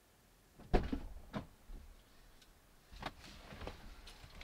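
Thumps, clicks and rustling of someone getting into the driver's seat of a parked Mercedes CLA. A sharp thump comes just under a second in, then a smaller click, then softer knocks and rustling near the end.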